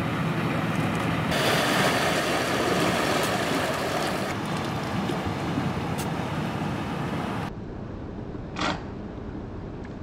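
Galápagos marine iguana sneezing out salt through its nostrils: a single short, sharp puff near the end. Steady rushing background noise underneath.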